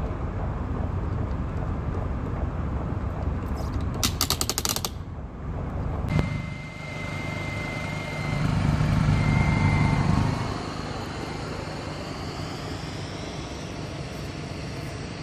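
A vehicle engine running with a steady low rumble. About four seconds in comes a quick run of sharp clicks, and soon after, a steady high tone sounds briefly, breaks off, and returns.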